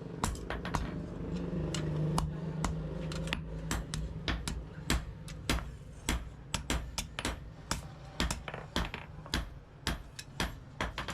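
Hand hammer striking hot steel on an anvil in a steady, uneven run of sharp metallic blows, about two to three a second, each ringing briefly, as a sickle blade is forged. A low hum sits under the first few seconds and fades.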